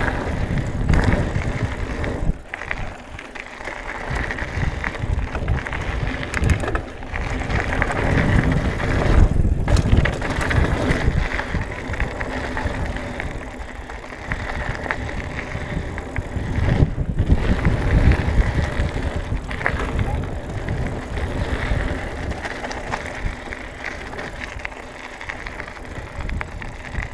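Trek Marlin 6 hardtail mountain bike riding fast down a loose gravel trail: tyres rolling and crunching over the stones, with an uneven rumble that swells and fades throughout.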